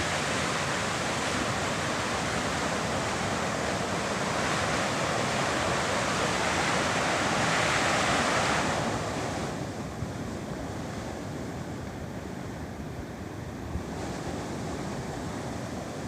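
Steady rush of a waterfall. About nine seconds in it turns quieter and duller.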